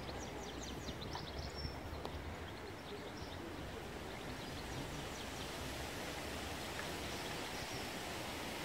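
Steady outdoor background noise on open water, with a low rumble of wind on the microphone. Faint, short high chirps come in a cluster near the start and again about five seconds in.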